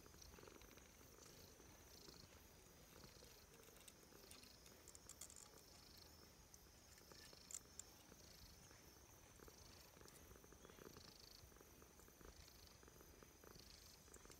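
Calico cat purring faintly and steadily while being stroked, a sign of contentment.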